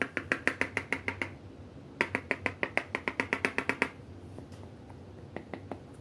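A container of baking soda being tapped rapidly against a hard surface to settle and pack the powder down, about eight sharp taps a second in two runs, with a few fainter taps near the end.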